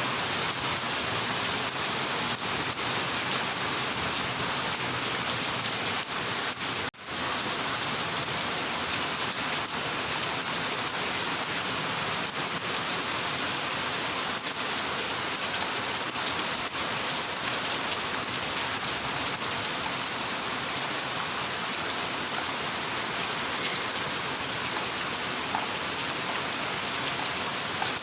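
Steady, heavy rain falling and pattering on surfaces, with one brief drop in level about seven seconds in.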